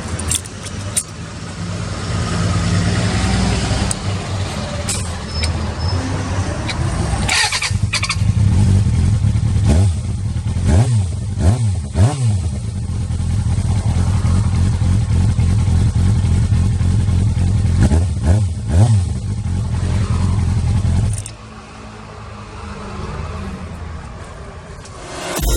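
Motorcycle inline-four engine, a Suzuki Bandit 400, running steadily with a handful of quick throttle revs: three in a row midway and two more later. The engine noise drops away sharply near the end.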